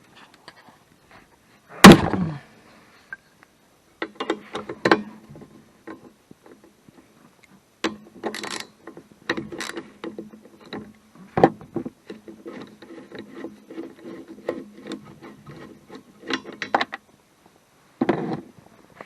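Hand tools working on a car's suspension strut mount: a loud metallic clunk about two seconds in, then spells of clicking and rattling metal.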